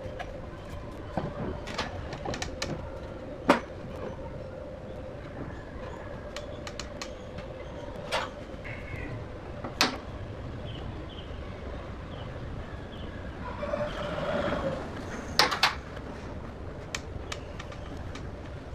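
Scattered sharp knocks and clicks, a few seconds apart, over a faint steady hum, with a short muffled sound shortly before the last pair of knocks.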